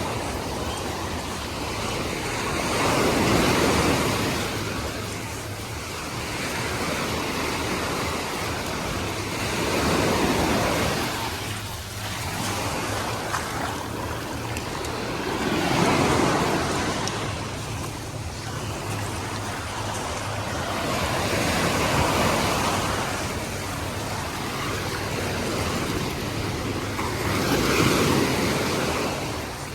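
Sea waves washing onto the beach, one swell of surf about every six seconds, with a steady low rumble of wind on the microphone underneath.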